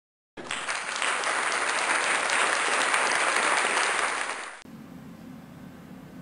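Applause starting about half a second in and running steadily for about four seconds, then dropping away suddenly to a faint, steady low hum.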